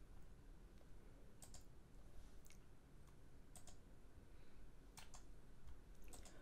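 Near silence: faint room tone with a few short, soft clicks, several of them in quick pairs.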